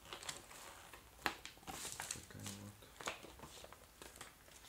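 A folded paper instruction sheet rustling and crinkling as it is handled and folded, with a few sharp clicks. A short low hum comes about two and a half seconds in.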